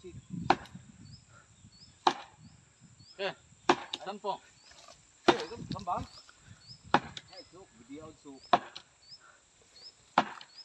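Heavy blows struck about every second and a half, seven in all, at the back of a partly cut tree trunk: a wedge being driven into the felling cut to tip the tree. A faint insect chirps over and over in the background.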